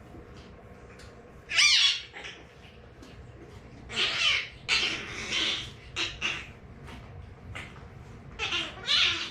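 French Bulldog puppy whining in high-pitched cries that slide down in pitch, in three bouts: about a second and a half in, a longer run in the middle, and again near the end.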